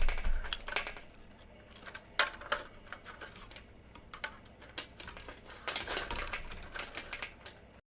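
Irregular light clicks and taps, like small hard objects being handled and set down.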